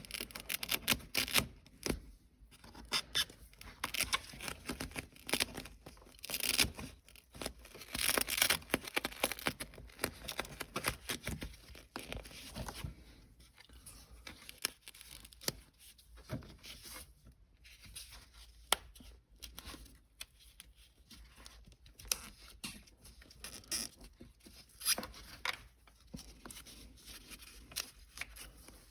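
Adhesive-backed foam noise-reduction liner being worked into a car's shifter tunnel by hand: irregular rustling, scraping and tearing sounds of the sticky foam being pulled back, pressed and reseated, louder in the first third.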